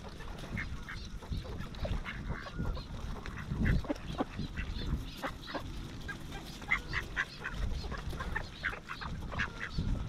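A flock of mallards and northern pintails calling at close range: many short quacks and chattering calls, scattered and overlapping, over a low rumble.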